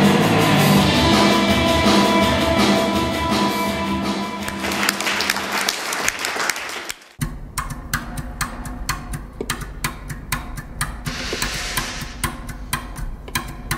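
Music with drums and held tones fades out over the first half. Then a small audience applauds, in scattered separate claps rather than a dense roar, from about seven seconds in.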